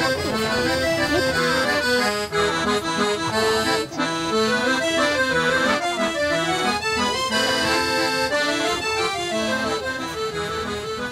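Music led by an accordion, playing a melody of short stepping notes over a steady accompaniment, easing a little in level near the end.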